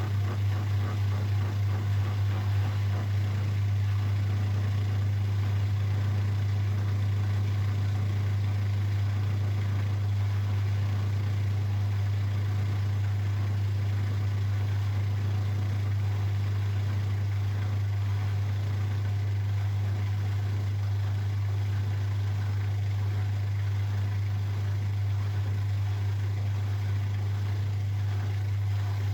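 Zanker EFX 4875 front-loading washing machine in its final spin, drum running at a steady high speed with a constant low hum.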